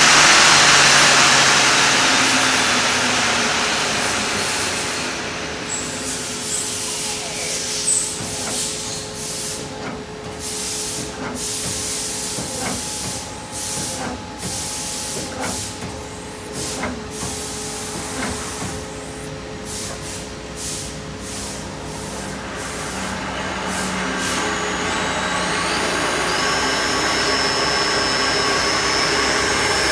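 Doosan Puma V400M CNC vertical turning lathe running under power. A loud hiss dies away over the first few seconds. The 12-station live-tool turret then indexes with a run of short clicks and clunks over a steady hum. Near the end a whine rises in steps as a live tool spins up.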